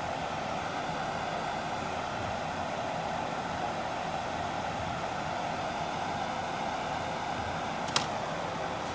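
Steady rushing noise with a single sharp click near the end.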